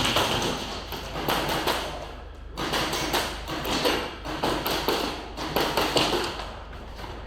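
A run of irregular taps and thuds, several a second, with a steady low hum underneath.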